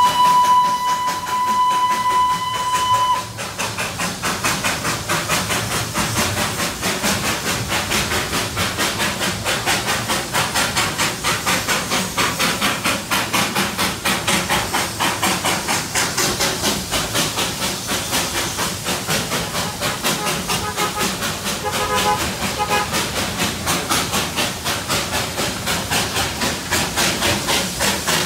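Darjeeling Himalayan Railway narrow-gauge steam locomotive: a single whistle blast that stops about three seconds in, then steady, quick, even exhaust beats with steam hiss as it works hard hauling a heavy three-coach train uphill.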